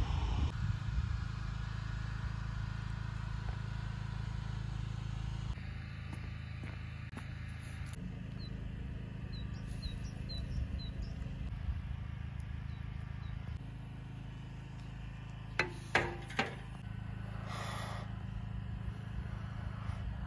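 Outdoor ambience with a steady low rumble, a few faint high chirps near the middle, and three sharp clinks about three-quarters of the way through as a steel ladle knocks against the cast kazan.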